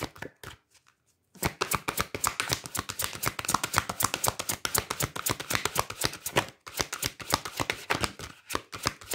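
A deck of cards being shuffled by hand: a quick run of crisp card-on-card flicks that starts about a second in, with two brief pauses near the end.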